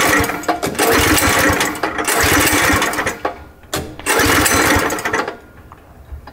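Small go-kart engine being pull-started with the choke on: after each pull of the recoil rope it fires and runs roughly for a second or two, then dies, several times over.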